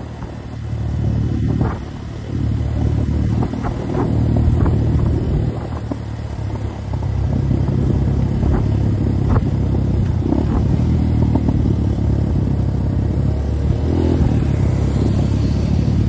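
Onboard sound of a motorcycle being ridden: its engine runs steadily under way, with wind rumble. The engine picks up a couple of times, about two and seven seconds in.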